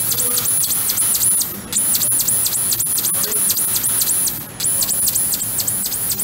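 Drive motors of a gantry laser cutting machine whining at a high pitch as the head traces star shapes in wood, the pitch dipping briefly at each corner, about ten dips per star, with a short break roughly every three seconds as it moves on to the next star. A steady hiss of air runs beneath.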